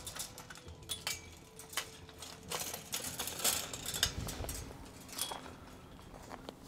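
Scattered light metallic clinks and rattles from a chain-link gate's hanging chain and latch as the gate is handled and opened.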